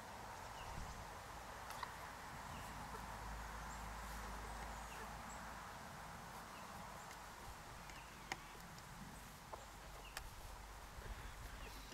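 A flock of German bush chickens (Deutsches Buschhuhn, a bantam breed) foraging, with faint scattered calls and a few sharp clicks, over a low steady rumble.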